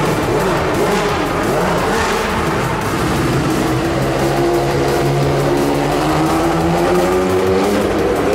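Tyrrell Formula 1 car's engine running as the car drives round, its note rising and falling with the throttle.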